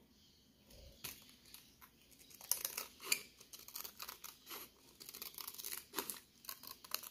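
Scissors cutting a thin strip of clear PET bottle plastic: an irregular run of short snips with the plastic crinkling, starting about two and a half seconds in after a near-quiet start.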